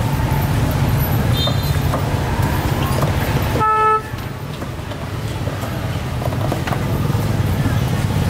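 A vehicle's steady low engine rumble, broken by one short horn toot about three and a half seconds in. The rumble drops away at the toot and slowly builds back.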